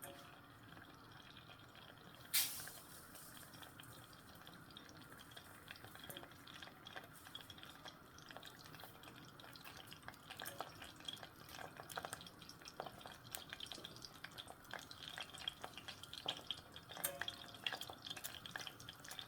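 Cooking oil heating in a small sufuria: a sharp click about two seconds in, then faint scattered crackles and pops that grow denser as the oil gets hot, ready for the onions.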